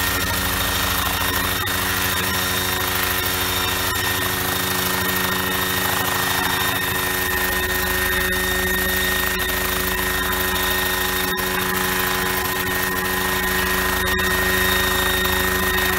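Homemade coaxial helicopter's engine and rotors running steadily, with a steady high whine over the engine note.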